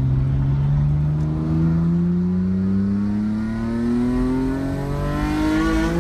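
Straight-piped Nissan Skyline GT-R R32's RB26DETT twin-turbo straight-six, heard from inside the cabin, revving up gradually as the car accelerates in one gear, its note climbing slowly and steadily in pitch.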